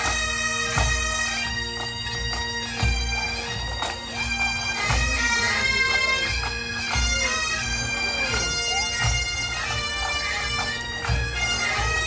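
Pipe band of Highland bagpipes playing a tune, the chanters' melody over the steady drone.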